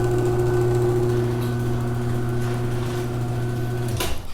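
Garage door opener motor running steadily as the door opens, then stopping with a clunk about four seconds in.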